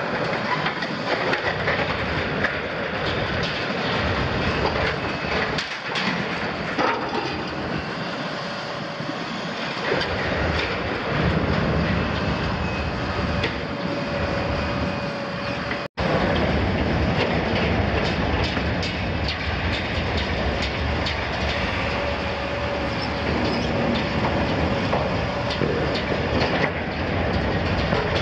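Liebherr 974 demolition excavator tearing apart the sheet steel of a double-walled oil tank with its jaws: continuous crunching, scraping and grinding of metal with short metallic squeals and clanks, over the running diesel engine and hydraulics.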